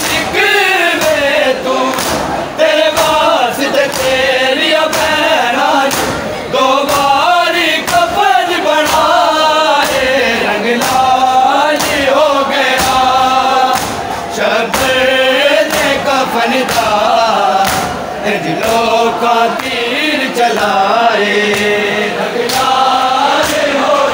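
A group of men chanting a Shia noha (Muharram lament) in unison, with sharp slaps of matam (chest-beating) keeping a steady beat roughly once a second.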